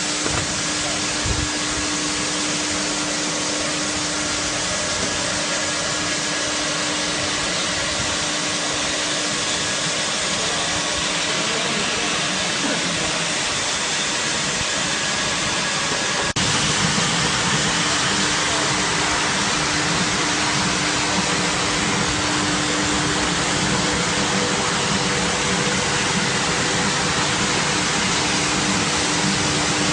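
Industrial carpet washing machine running: a steady mechanical whir with a constant hum over a hiss. About halfway through the sound changes abruptly and becomes slightly louder and deeper, then runs steadily again.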